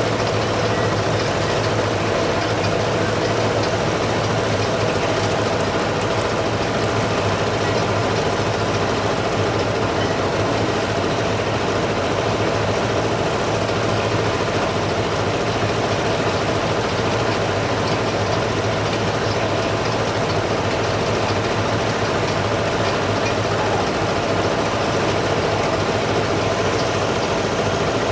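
A large engine running steadily, a constant hum that does not change.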